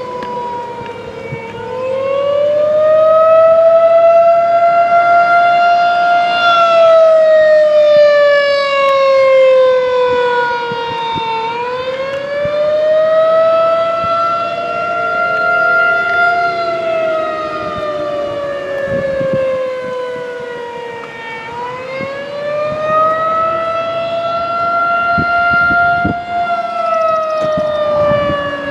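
Federal Signal 2001-SRN electromechanical outdoor warning siren sounding the attack signal: a loud wailing tone that slowly rises and falls in pitch, about one rise-and-fall every ten seconds.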